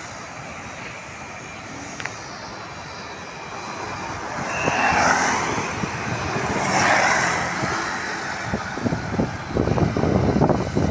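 Steady outdoor traffic noise that swells twice as vehicles pass, about five and seven seconds in, then wind buffeting the microphone near the end.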